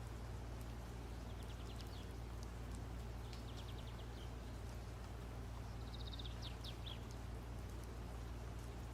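Faint bird chirping in short, rapid trills, three times, over a steady low hum.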